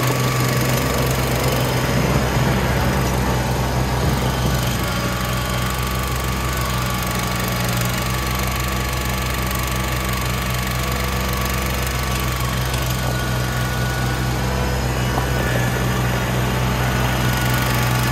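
Kubota BX23S compact tractor's three-cylinder diesel engine running steadily, freshly cold-started in freezing weather and still warming up, as the tractor moves off past the camera.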